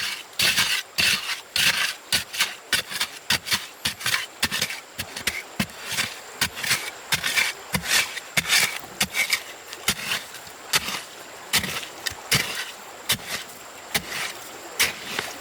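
Wood being worked by hand: irregular scraping strokes mixed with short knocks, a few each second with no steady rhythm.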